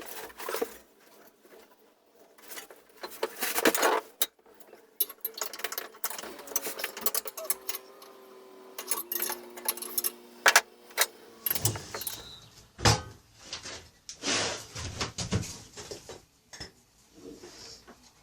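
Metal tools and mower parts clinking and knocking during disassembly of a riding mower's front end, with a steady hum in the middle that drops in pitch in steps before stopping.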